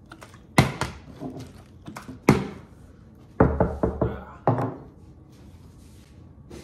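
Partly filled plastic water bottle flipped and landing on a kitchen countertop: a series of thunks, one about half a second in, another just past two seconds, a quick rattle of hits around three and a half seconds, and a last one at about four and a half seconds.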